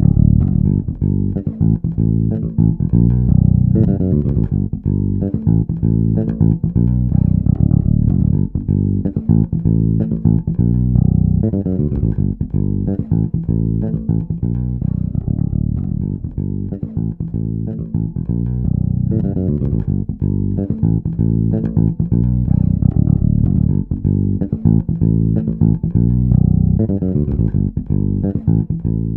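Electric bass guitar playing a continuous line of plucked notes through an EBS Microbass 3 bass preamp/DI box, with a dark tone that has little treble.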